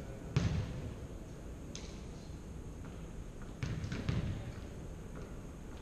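A ball bouncing on a hardwood gym floor: a thud about half a second in, a sharper tap near two seconds, and two more thuds close together about four seconds in, over a low steady background.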